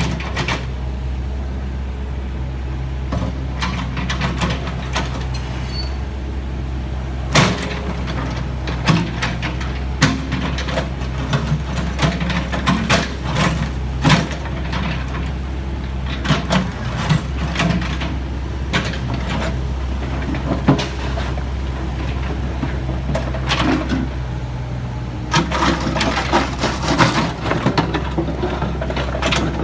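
Heavy construction machine engine running at a steady low hum, with clusters of sharp knocks and clanks through the middle stretch and again near the end.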